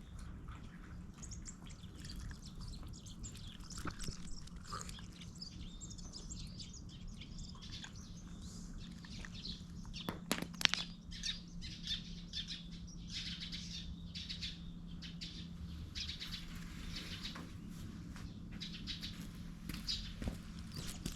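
Small birds chirping over and over, with a few sharp clicks about ten seconds in and a low steady hum underneath.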